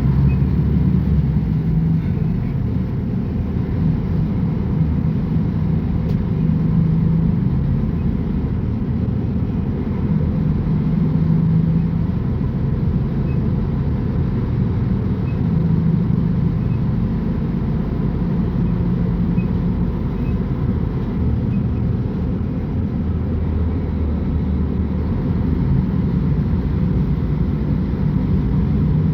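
Mercedes-Benz O500UA bus's diesel engine running, a steady low rumble with a hum that swells and eases every few seconds.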